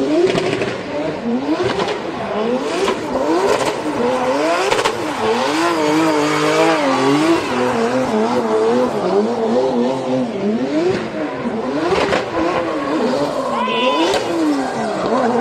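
Drift car's engine revving up and down over and over as it slides, with a few sharp cracks and tyre squeal near the end.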